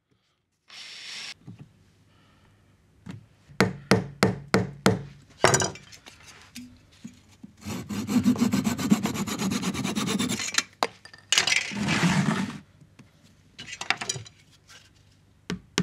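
A hand flush-trim saw cutting a wooden dowel plug off flush with the wood surface: a quick run of sharp strokes, then steady rasping sawing, with a second shorter spell of sawing after it. A drill whirs briefly about a second in.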